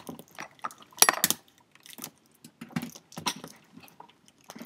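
Small plastic packet of charms being opened and handled: a string of light clicks and crinkling, loudest about a second in.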